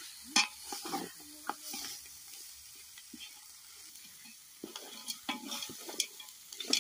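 A metal ladle stirring chicken pieces and tomatoes in a metal pot, scraping and clinking against the sides several times, over a faint sizzle of the chicken frying.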